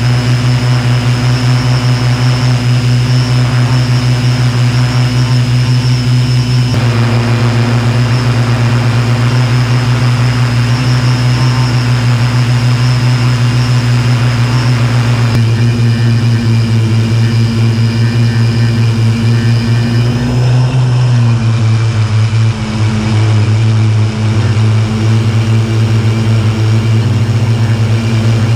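Homebuilt quadcopter's electric motors and propellers droning steadily, heard loud and close from the camera on board, with the pitch of the drone stepping slightly a few times as it hovers.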